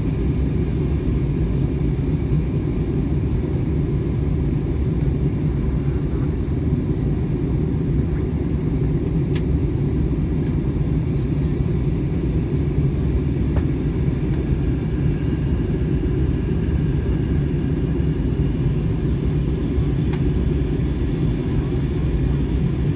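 Steady low cabin rumble of an Airbus A321 airliner in descent, the engine and airflow noise heard from inside the cabin.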